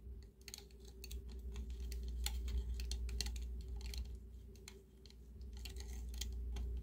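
Light, irregular clicks and small scrapes of metal tweezers and fingers working elastic cord into the holes of a plastic action figure's legs. They fade out briefly about five seconds in. A faint steady hum runs underneath.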